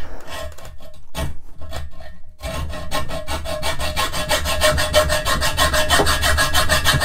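A hand hacksaw cuts through a steel channel. It starts with a few uneven strokes, then settles into fast, even strokes about a third of the way in, with a steady ringing note from the steel under the blade.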